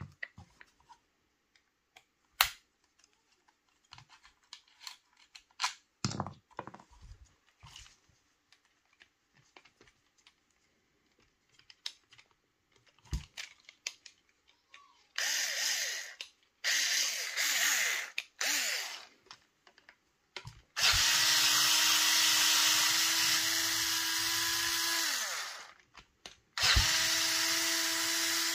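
Small electric screwdriver driving screws out of a paintball marker's regulator. It starts with three short bursts, then runs steadily for about five seconds, its pitch dropping as it winds down, and starts again near the end. Before the motor, there are light clicks and taps of parts being handled.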